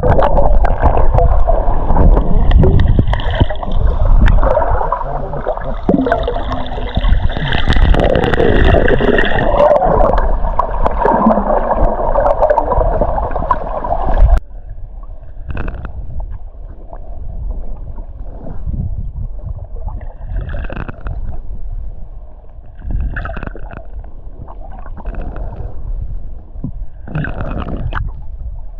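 Water gurgling and rushing, loud and muffled, which cuts off abruptly about halfway through to a quieter water bed broken by short splashes and knocks.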